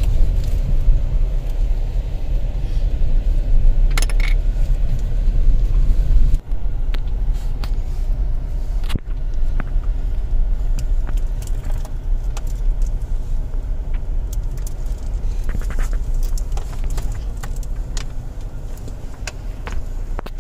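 Inside a car driving slowly on a rough village road: a steady low rumble of engine and tyres, with scattered light clicks and rattles from the cabin.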